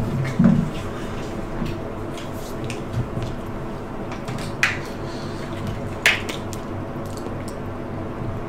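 Steady background hum in a small room, with a few short sharp clicks and taps, the loudest about four and a half and six seconds in.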